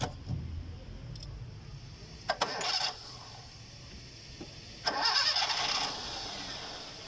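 Car engine being started with the starter motor: a short crank about two seconds in, then a second, louder crank about five seconds in that catches and settles into a steady idle. The battery now cranks the engine after being revived by replacing its battery water.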